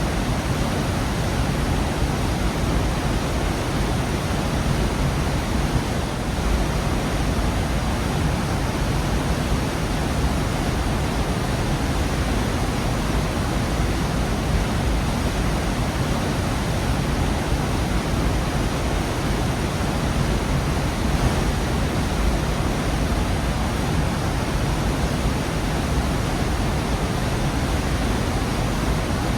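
Waterfall pouring into a rocky gorge: a steady, unbroken rush of falling water, heaviest in the low end.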